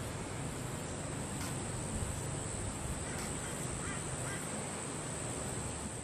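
Juvenile grey butcherbirds giving a few faint, short calls over a steady hiss and a thin, steady high whine.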